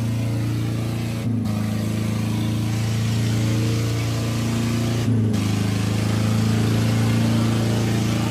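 Diesel tractor engines running steadily and hard under heavy load during a tochan (tractor tug-of-war) pull. The sound breaks briefly twice, about a second in and about five seconds in.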